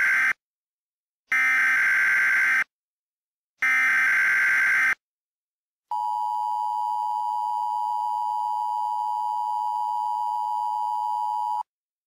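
Emergency Alert System broadcast tones. First come the SAME digital header bursts: a harsh electronic screech repeated three times, each burst about a second long with short silences between (the first is already under way). About six seconds in, the steady two-tone EAS attention signal starts, holds for nearly six seconds and cuts off suddenly.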